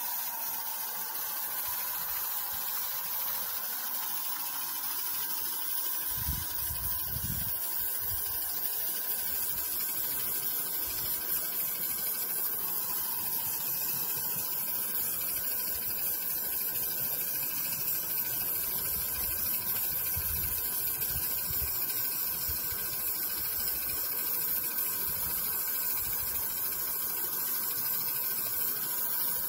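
Garden-railway model steam locomotive running with a train of wagons, giving a steady hiss. Brief low rumbles come about six seconds in and again near the end.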